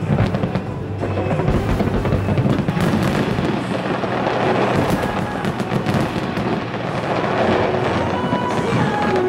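Fireworks barrage, a dense run of crackling and bangs from bursting shells and comets, mixed with music with a beat.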